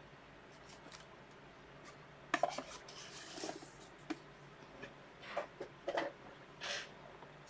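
Trading card boxes and packaging handled on a tabletop: scattered sharp clicks and taps with a brief rustle. The loudest clicks come about two and a half seconds in and again around six seconds.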